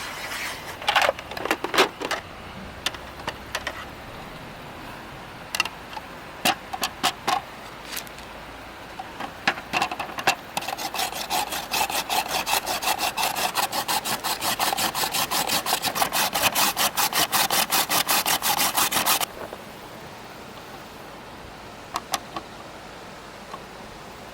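A few scattered knocks and clicks, then a knife chopping quickly and evenly on a wooden cutting board for about eight seconds, stopping abruptly.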